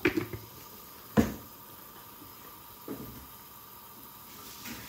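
Large pot of seasoned water at a rolling boil, with a steady bubbling hiss. Sharp knocks come right at the start and about a second in, the second one loudest, and a fainter one follows near three seconds.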